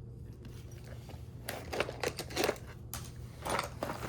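Rummaging through a box of spare parts and cables: short bursts of rustling and crinkling handling noise, over a steady low electrical hum.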